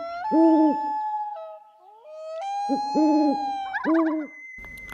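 Owl hooting in quick runs of three or four short hoots, over long held tones that step up in pitch.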